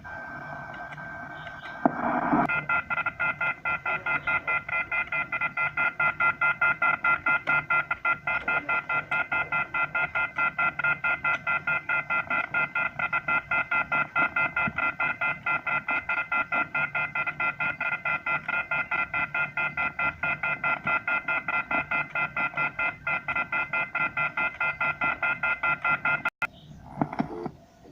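Telephone off-hook warning tone (the 'howler'): several high tones sounding together, beeping on and off several times a second. It starts about two seconds in and cuts off suddenly near the end. It is the signal that a phone receiver has been left off the hook after the 'please hang up and try again' recording.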